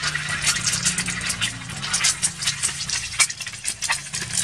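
An egg frying in hot oil in a steel wok, sizzling with a dense run of small crackling pops. A low steady hum runs underneath.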